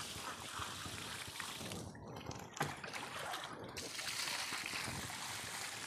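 Water poured from a plastic bucket splashing onto the ground in two long pours, the second starting a little past halfway, with a single short knock in the gap between them.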